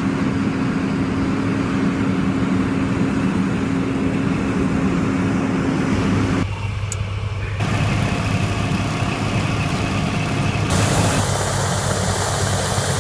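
Heavy vehicle engines idling with a steady hum, changing abruptly a few times. From about two-thirds through, a loud steady rushing hiss with a high whine: a medical helicopter's turbine engine running.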